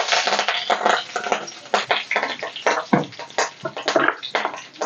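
Curry leaves and mustard seeds sizzling and crackling in hot oil in a kadhai (tadka tempering). It starts as a dense hiss and thins to scattered sharp pops.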